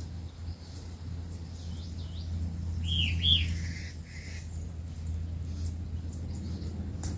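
A wild bird calling: two quick arched notes about three seconds in, then a shorter, lower note, over a steady low hum.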